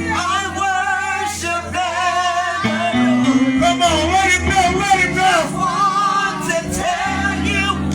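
Gospel worship singing: a voice holding drawn-out, wavering notes over sustained keyboard chords.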